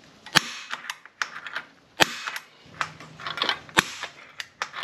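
Spring-loaded automatic center punch snapping three times against a solar panel's aluminum frame, marking hole locations for drilling, with fainter clicks and taps between the snaps.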